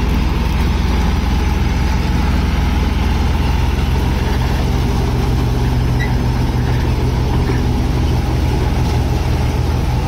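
Massey Ferguson 9500 Smart tractor running steadily under load, driving a KS straw reaper that chops wheat stubble into tudi and blows it into a trolley. The owner hears a heavy noise from the reaper now and then and thinks a blade inside may be broken.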